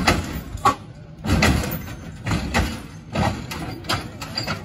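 Lowrider Cadillac hopping on its hydraulic suspension: repeated heavy thumps and clatter about once a second as the car bounces and lands.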